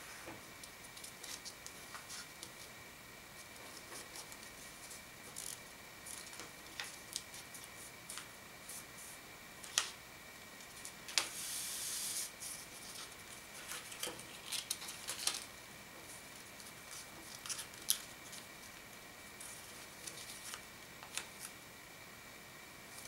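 Origami paper being folded and creased by hand: soft crinkles and scattered sharp little crackles as folds are pressed flat, with a longer rustle about halfway through as the sheet is handled. A faint steady high tone sits underneath.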